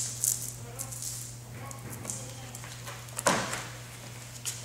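Handling noise from working a composite repair wrap around a pipe: crisp rustling of sheet material, then one sharp knock about three seconds in, over a steady low hum.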